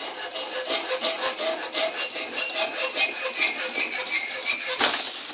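Hacksaw blade rasping through a refrigerator compressor's pipe in quick back-and-forth strokes, about three a second. About five seconds in the pipe is cut through and a loud hiss of escaping pressure begins: trapped air and a little refrigerant left in the dead compressor's line.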